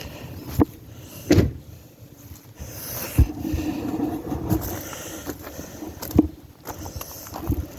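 A person climbing out of a Hummer H3's cab: a scattered series of knocks and thumps against the vehicle, with rustling and shuffling in between.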